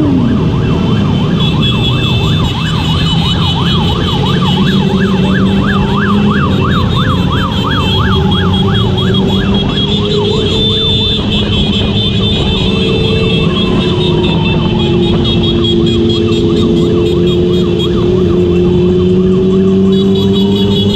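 Sirens yelping in a fast up-and-down warble, with slower falling sweeps later, over steady motorcycle engine and road noise.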